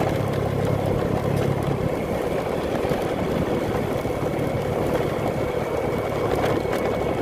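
Motorcycle engine running steadily while riding, with a constant rush of road and riding noise and no change in pace.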